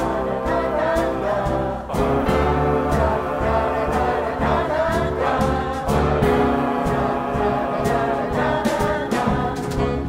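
Mixed choir singing with a jazz quintet of piano, trombone, alto saxophone, double bass and drums, the song driven along by drum and cymbal hits.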